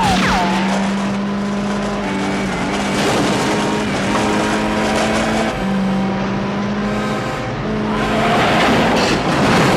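Car-chase sound effects: a car engine running hard under heavy throttle, with a tyre squeal right at the start. About eight seconds in comes a surge of tyre and skidding noise.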